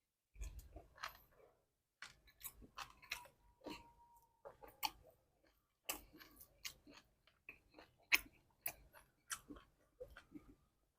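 A person chewing a mouthful of beef curry: a run of irregular, quiet smacking clicks from the mouth.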